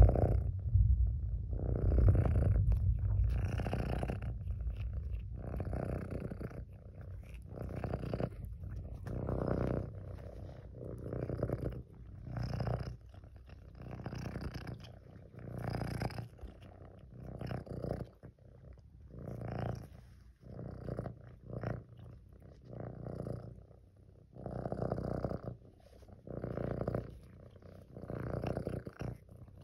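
Kitten purring close up, the purr swelling and fading with each breath about every second and a half, loudest in the first few seconds.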